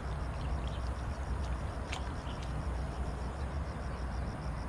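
Low, fluttering wind rumble on the microphone, with an insect chirping in a fast, even rhythm of about eight pulses a second. A single sharp click comes about two seconds in.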